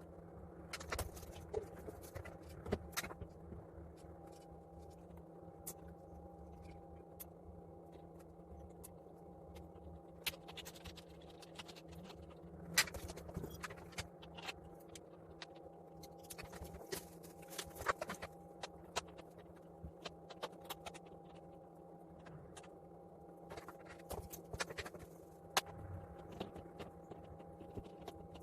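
Irregular clicks, taps and scraping of metal fan parts and hardware being handled and fitted during a ceiling fan installation, over a steady low hum.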